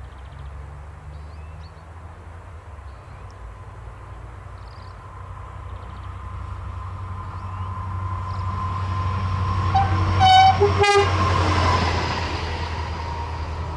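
SNCF BB 26000 electric locomotive hauling a freight train of tank wagons approaches and passes, its rumble and a steady whine growing louder. About ten seconds in it sounds its two-tone horn briefly, a high note and then a lower one.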